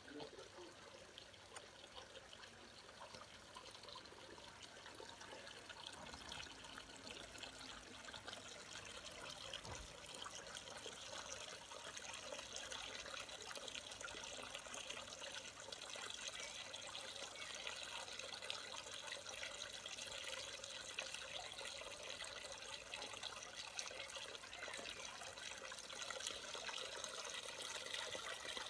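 Small garden waterfall splashing and trickling steadily into a pond, slowly growing louder.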